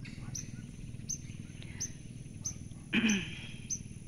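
Wild animal sounds: a short high chirp repeats about every 0.7 s, and a single loud call that falls in pitch comes about three seconds in, over a steady low hum.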